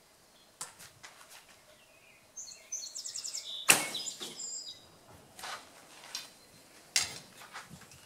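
One arrow shot from a Bear Super Mag 48-inch, 45-pound recurve bow: a single sharp crack of the string's release about four seconds in, the loudest sound. Lighter clicks and knocks follow as the next arrow is handled and nocked.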